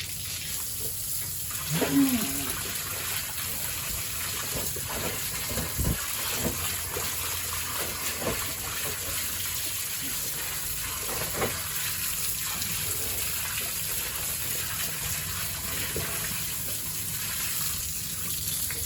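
Running water splashing steadily, with a short pitched sound about two seconds in.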